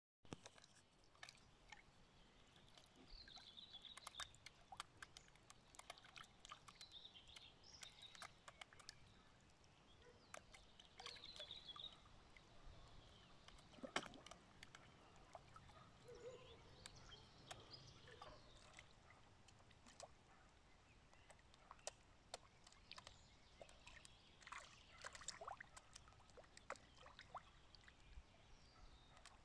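Fish slurping and splashing at the water's surface as they take floating bread: faint, irregular small pops, smacks and splashes.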